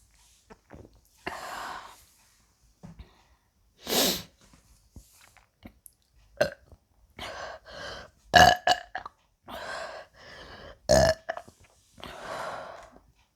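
A woman burping again and again as she drinks down a bottle of Sprite, the gas of the fizzy drink coming back up: about eight burps of varying length, some short, some drawn out, the loudest about four, eight and eleven seconds in.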